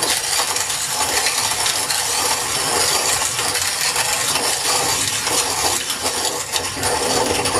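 Hand-cranked manual grain mill grinding coffee beans: a steady, dense crunching and crackling as the beans are cracked and crushed.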